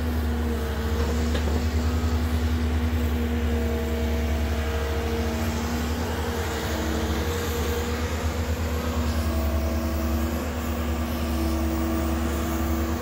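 Cat 308 mini excavator's diesel engine running steadily under load while it digs and swings, with whining tones that come and go as it works.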